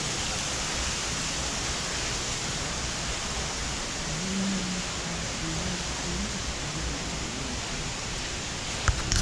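Steady, even rushing of running water from an indoor creek and waterfall display, with no breaks.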